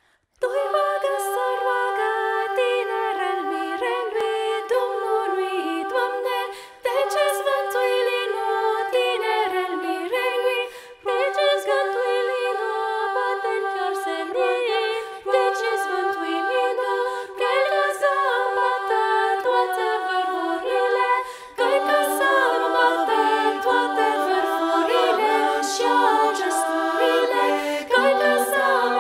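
Women's vocal ensemble singing a Transylvanian colindă (Romanian winter carol) a cappella, several voices in close harmony, with three brief breaks between phrases.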